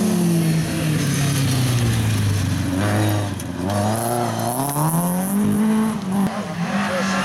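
Volvo 240 rally car's engine on a gravel stage: the revs fall as it slows into a bend, then climb as it powers out sideways through the corner, with a short dip from a gear change about six seconds in.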